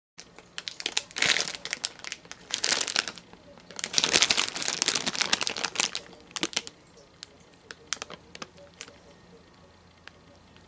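Soft plastic pack of Huggies Simply Clean baby wipes crinkling as it is handled, in several loud bursts over the first six seconds, then lighter crackles and clicks.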